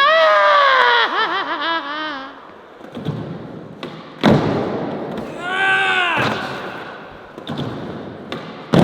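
Skateboard clacking down hard on the ground twice, about four seconds in and again at the end. Before these come a long yell with a wavering pitch and, later, a shorter rising-and-falling shout.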